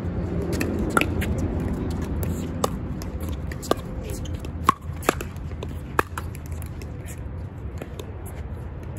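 Pickleball paddles striking the ball in a rally: a string of sharp pocks about a second apart, two in quick succession about halfway through, over a steady wind rumble on the microphone.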